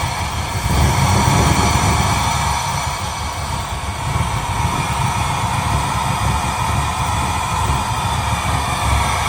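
Chevrolet LS3 6.2-litre V8 idling steadily after start-up, its injector connectors repaired so the misfire codes on cylinders 1, 4 and 8 are cleared.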